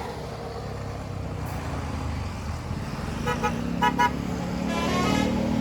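Departing tour bus's horn giving several short toots about three to four seconds in, then a longer note, over the bus's engine running and growing louder as it pulls away.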